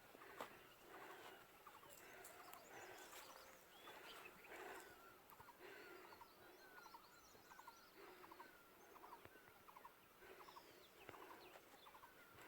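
Very faint outdoor ambience with distant bird calls: short rattling series and brief falling notes, repeating every second or two.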